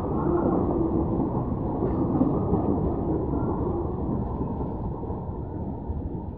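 Goods train of open freight wagons rolling past on the rails, a steady rumble of wheels that begins to fade about four seconds in as the brake van at its tail goes by.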